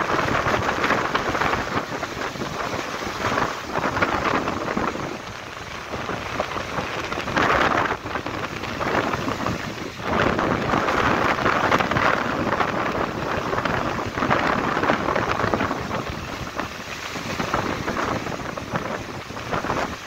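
Surf breaking and washing up a sandy beach in strong wind: a continuous loud rush that swells and ebbs with each wave, with wind buffeting the microphone.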